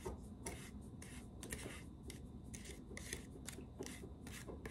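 Metal pharmacy spatula scraping gum acacia powder off a plastic weighing boat into a porcelain mortar: a series of short, faint scrapes, about two or three a second.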